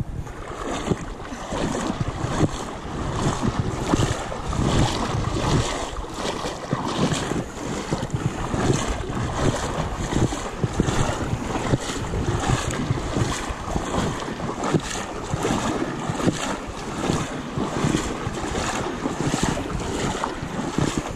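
River water splashing and sloshing in a steady rhythm, about three splashes every two seconds, from someone moving through the river with the microphone just above the surface, with wind buffeting the microphone.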